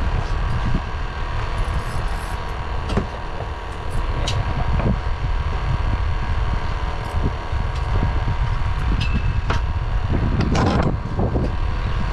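Fishing boat's engine running at idle, a steady low rumble, with wind on the microphone. A brief louder rush of noise comes about ten and a half seconds in.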